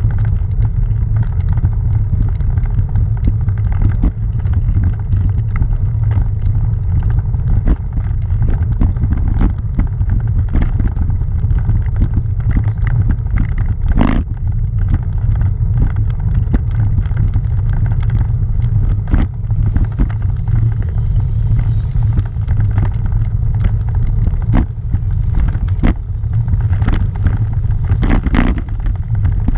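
Tyres rolling over a cobblestone road, heard through the camera mount: a steady low rumble broken by frequent knocks and rattles as the stones jolt it.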